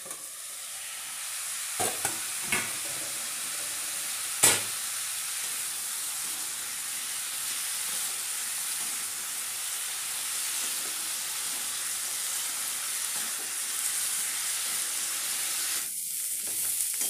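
Cauliflower florets and potato pieces frying in hot mustard oil in a steel kadai, a steady sizzle as they are stirred with a wooden spatula. A few sharp knocks come early on, the loudest about four and a half seconds in.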